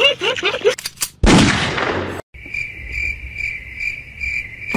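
A sudden loud bang about a second in that dies away over about a second, followed by steady, high cricket chirping pulsing about three times a second.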